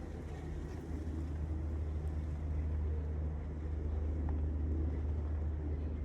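Low, steady mechanical rumble, like a distant engine, swelling a little in the middle, under soft outdoor background hiss.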